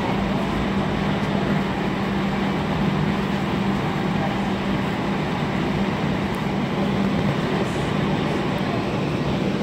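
Interior sound of a Toronto streetcar running along the street: a steady rumbling ride noise with a constant low hum underneath.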